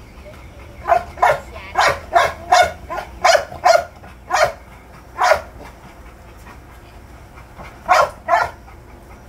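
American Bully dog barking: a quick run of about ten short barks, a pause of a few seconds, then two more barks near the end.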